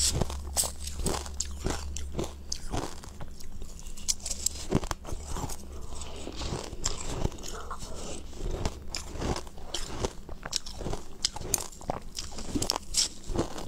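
Close-miked crunching and chewing of mouthfuls of ice, many sharp irregular crunches one after another.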